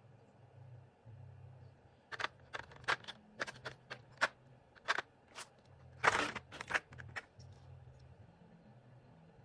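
A string of about a dozen short, sharp plastic clicks and clacks over some five seconds, with one longer, louder scraping clatter about six seconds in: SA-profile double-shot keycaps being handled.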